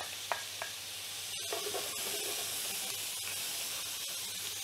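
Diced carrots and onions sizzling in oil in a cast iron pot as they are stirred with a wooden spoon, with a few soft clicks in the first second or so.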